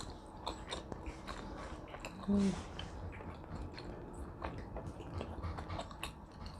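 A person chewing and biting food close to the microphone, with many small irregular wet clicks, and a short hum of the voice about two seconds in.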